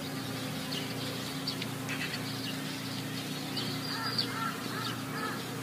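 Birds calling: short, repeated caw-like calls, several in quick succession about four seconds in, over a steady low hum.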